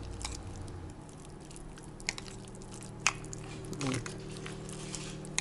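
Metal spoon stirring grated cheese and mayonnaise in a ceramic bowl: soft squishing of the thick mixture, with scattered clicks of the spoon against the bowl. A brief voice sound comes near the end, over a steady low hum.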